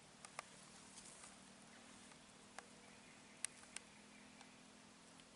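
Near silence with a faint steady hum, broken by a few short sharp clicks: two near the start, one in the middle and a louder pair a little later.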